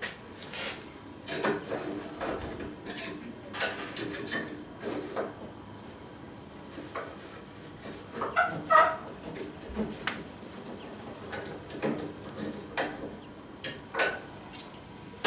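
Hand tools knocking, clinking and scraping against a steel exhaust pipe on a metal workbench: irregular knocks and scrapes, with a few short metallic rings about eight seconds in and a louder clatter near the end.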